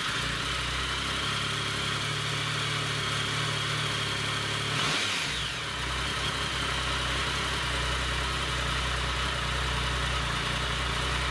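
Triumph Tiger 1050's three-cylinder engine idling steadily just after starting, with one brief blip of the throttle about five seconds in.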